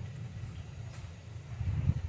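Distant thunder rumbling low and steadily, swelling louder near the end.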